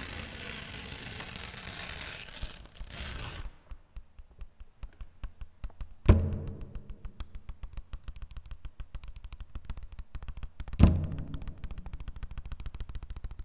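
Paper percussion: dense crinkling and rustling of paper for about three seconds, then a fast run of dry ticks, broken twice by a loud low thump with a short ringing tail.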